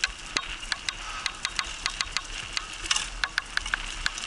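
Bicycle rolling fast along a dirt trail behind a pair of harnessed dogs: irregular sharp clicks and rattles, several a second, over a steady rolling hiss.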